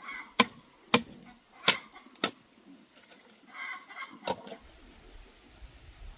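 Chickens clucking, with five sharp knocks spread over the first four and a half seconds.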